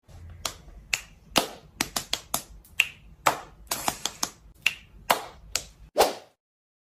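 A rapid, irregular run of sharp snapping clicks, about three a second, with a faint low hum beneath, ending in one louder snap about six seconds in.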